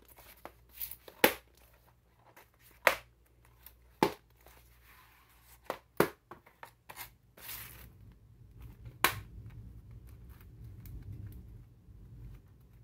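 A DVD case and its cardboard slipcover being handled on a tile floor: a scattering of sharp taps and clicks as the case is slid out, set down and unfolded, with soft cardboard rustling between them.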